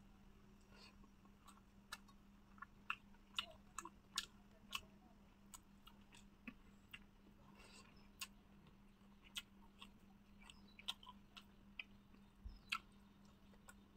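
Close-up mouth sounds of a person eating fish curry: irregular wet clicks and smacks of chewing, one or two a second. A faint steady hum runs underneath.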